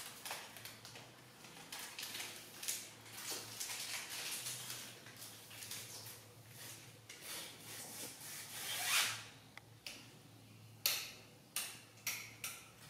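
Soft broom swishing over a tiled floor in repeated sweeping strokes, then a few sharp clicks and knocks near the end.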